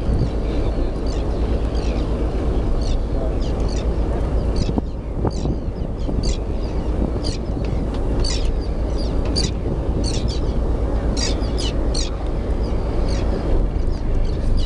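Birds giving many short, high chirping calls in quick succession, thickest in the second half, over a steady low rumble.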